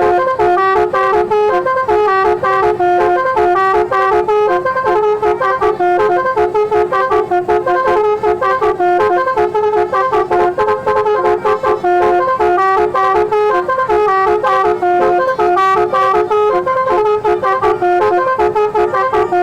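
Bus basuri horn, a multi-trumpet musical horn, playing a melody as a quick, unbroken run of stepped notes with several tones sounding together.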